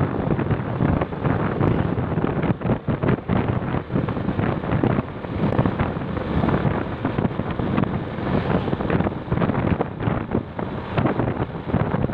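Wind buffeting the microphone: a heavy, gusting rumble that swells and dips irregularly throughout.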